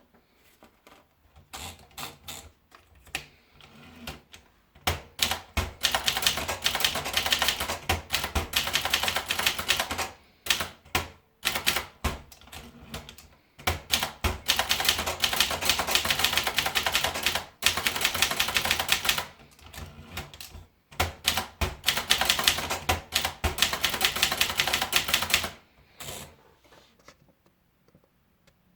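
Privileg 300 typewriter being typed on: a few single keystrokes at first, then runs of rapid typing several seconds long, separated by short pauses with scattered strokes, stopping a little before the end.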